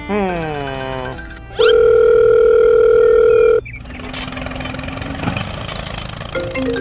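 Edited sound effects: a falling slide in pitch, a quick rising whoop, then a loud steady beep like a dial tone lasting about two seconds, and after it a noisy, busier stretch with background music.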